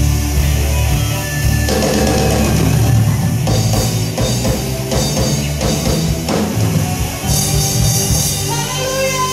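Live church worship band playing a rock-style instrumental passage on drum kit, electric guitar and keyboard, with heavy low bass under the drums.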